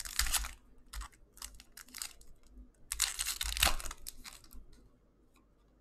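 Trading cards and a clear plastic card sleeve being handled: a few short bursts of plastic crinkling and card rustling, the longest and loudest about three seconds in, then quiet near the end.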